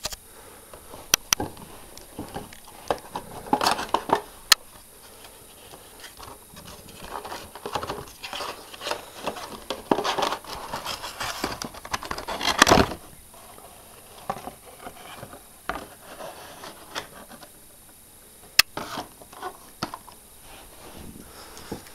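Cardboard figure box being opened by hand and its plastic tray pulled out: scattered sharp clicks, scraping and crinkling, loudest about ten to thirteen seconds in.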